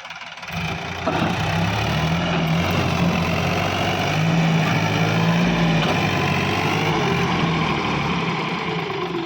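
Sonalika DI 750 tractor's diesel engine running, picking up speed about a second in and holding steady under load, then easing off slightly near the end.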